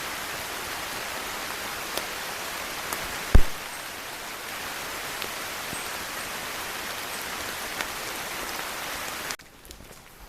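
Steady rain hiss with scattered drip-like ticks, broken by one loud, short low thump about three and a half seconds in. Near the end the rain cuts off suddenly to a much quieter background with faint clicks.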